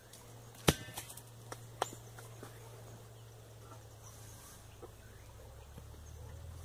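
A single sharp metallic clank with a brief ring under a second in, followed by a few lighter knocks. A low steady rumble runs underneath.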